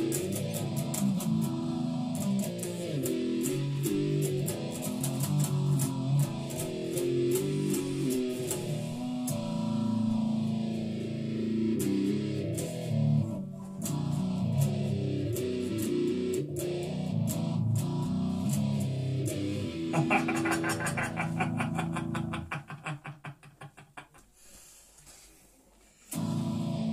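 Electric guitar played through an amp with a slowly sweeping effect that swells and dips about every two seconds. About twenty seconds in comes a fast picked passage; the playing then stops and the notes die away, and a short loud strum comes near the end.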